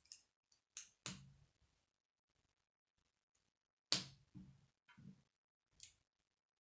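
K'nex plastic rods snapping into a connector: about half a dozen sharp plastic clicks, the loudest about four seconds in, between quieter rattles of the pieces being handled.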